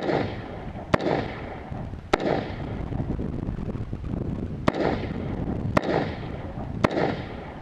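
Rifle shots fired one at a time, six in all, mostly about a second apart with a longer pause after the third, each trailing off in an echo.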